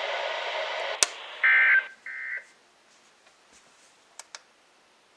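Weather radio receiver hissing with static for about a second, then a click and two short, harsh buzzing data-tone bursts, typical of the digital end-of-message code that closes a NOAA Weather Radio alert. The signal then drops to near silence, with two faint clicks near the end.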